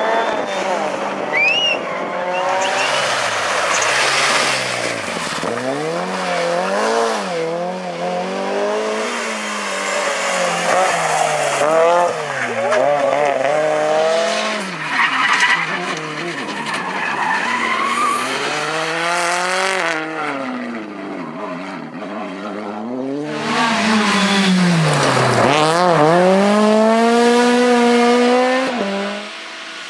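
Rally car engines at full throttle, the engine note repeatedly climbing and dropping sharply with gear changes and lifts, over a hiss of tyre and surface noise with some tyre squeal.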